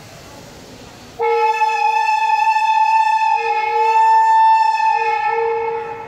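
Indian Railways WAP7 electric locomotive's two-tone air horn sounded from the cab: one long blast of about four and a half seconds starting about a second in, with the lower note breaking off and coming back partway through.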